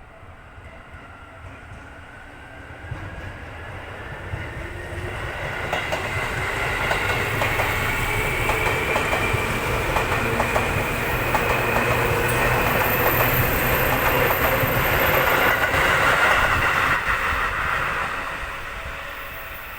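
Electric commuter train approaching and passing close by, a motor whine rising in pitch as it nears, with the rapid clatter of wheels over rail joints. It is loudest about three-quarters of the way through, then starts to fade.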